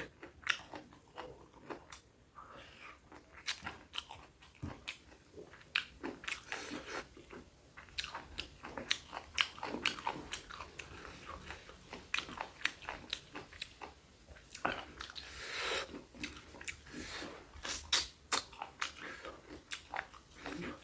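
Close-miked chewing and biting of food, with many irregular crisp crunches and clicks.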